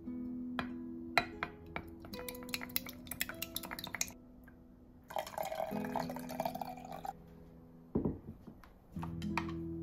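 Wooden chopsticks clicking rapidly against a glass measuring jug as raw eggs are beaten, for about four seconds. Then a liquid, the dashi for the custard, is poured into the jug for about two seconds, followed by a single thump.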